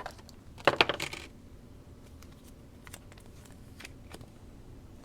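Trading cards being handled on a table: a short burst of sharp clicks and sliding scrapes about a second in, then a few faint ticks.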